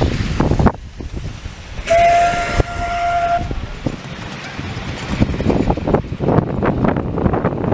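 A miniature steam locomotive's whistle gives one steady blast of about a second and a half, starting about two seconds in, with a rush of steam hiss. Before and after it, the wheels of the passing carriages clatter on the small-gauge track.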